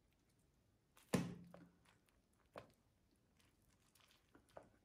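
A few light knocks and taps as silicone muffin cups of egg cups are lifted out of an air fryer basket and the egg cups tipped onto a plate. The clearest knock comes about a second in and rings briefly, with a smaller one a little later and faint taps near the end.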